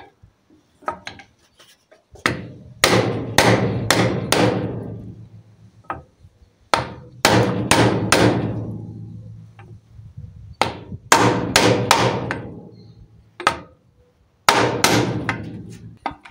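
A hammer striking a metal punch: runs of three to five sharp metallic blows, each ringing out for about a second, with pauses between the runs.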